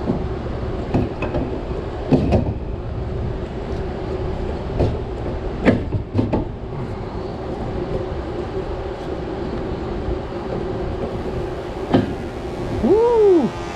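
Steady machine hum in a workshop, broken by sharp metallic knocks every second or few. Near the end comes a short squeal that rises and falls.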